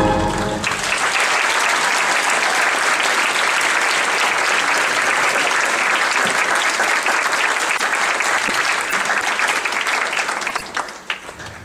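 An audience applauds steadily as the recorded music ends at the start. The clapping thins and dies away near the end.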